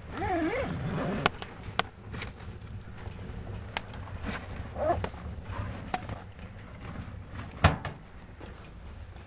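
Woodstove in use: the steel stove door creaks open with a wavering squeal. Then the wood fire crackles with scattered sharp pops, the loudest about three quarters of the way through, over a steady low rumble.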